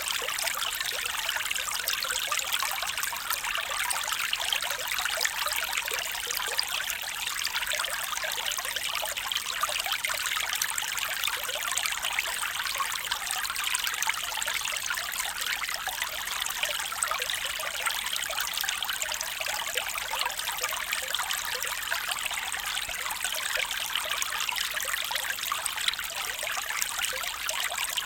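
Small stream trickling and babbling over stones, a steady gentle flow of water.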